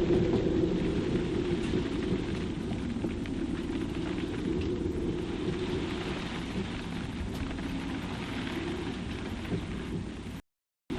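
Storm wind gusting over 35 knots through a sailboat's rigging: a steady low howl under a wash of noise, with scattered raindrop ticks. The sound cuts out completely for about half a second near the end.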